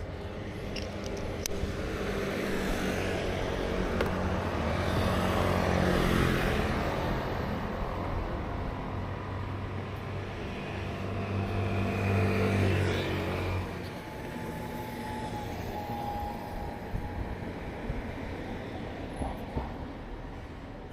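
Street traffic: two motor vehicles pass by, their engine and tyre noise building and fading, the first loudest about six seconds in and the second about twelve seconds in.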